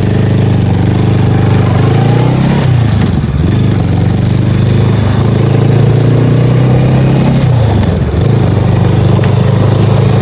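Honda Rebel 500's parallel-twin engine running loud under way. Its pitch falls about two and a half seconds in and again near eight seconds, then holds steady.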